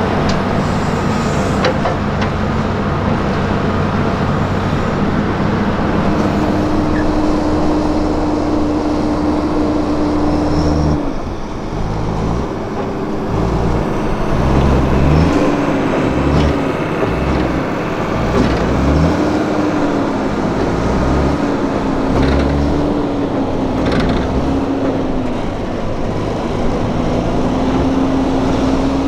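Heavy diesel machinery running: a crawler excavator and a Fendt tractor working steadily. After a break about eleven seconds in, a Fendt tractor's diesel engine runs with its pitch rising and falling as the hydraulic tipping trailer is raised.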